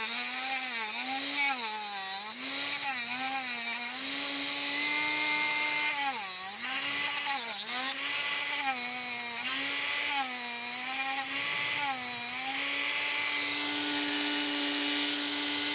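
Rotary tool with a 3D-printed TIG tungsten grinder attachment running while a 3/32" tungsten electrode is pressed against its abrasive disc to grind a sharp point. The motor's whine drops in pitch under load with a gritty grinding hiss each time, about eight passes, then runs steady and unloaded for the last few seconds.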